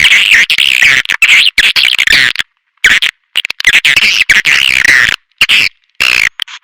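Swiftlet lure call: dense, rapid chirps and twitters of swiftlets, looping in choppy stretches broken by abrupt short silences, about two and a half and five seconds in.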